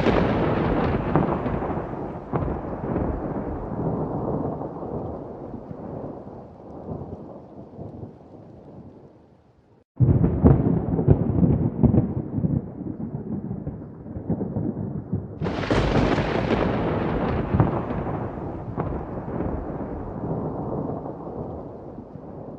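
Thunder: a rolling rumble that slowly dies away, then a new rumble starts suddenly about ten seconds in, followed by a sharper crack about fifteen seconds in that rolls off into a long fading rumble.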